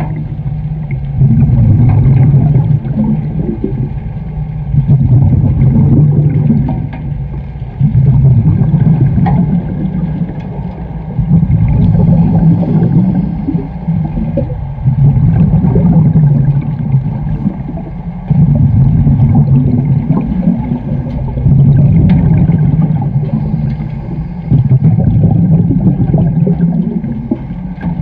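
Diver breathing underwater through a regulator fed by an air hose. Each exhale lets out a low rumbling rush of bubbles lasting about two seconds, with quieter inhales between, in an even cycle of roughly three seconds, about nine breaths in all.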